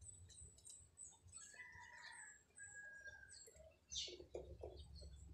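Near silence with faint bird chirps in the background and small clicks and rustles from hand work on wiring terminals; one slightly louder rustle about four seconds in.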